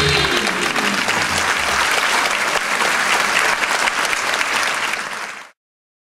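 Audience applauding, with the last notes of the music dying away in the first second or two; the sound cuts off suddenly near the end.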